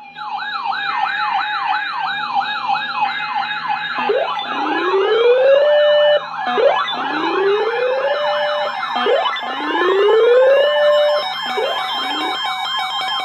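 Several electronic sirens sounding together for a test tornado warning. A fast up-and-down wail cycles about twice a second, while slower tones rise, hold briefly and cut off every few seconds.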